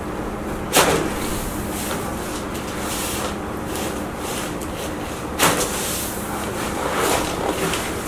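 Two sharp cracks about four and a half seconds apart: neck joints popping during a chiropractic neck adjustment, over a steady hum.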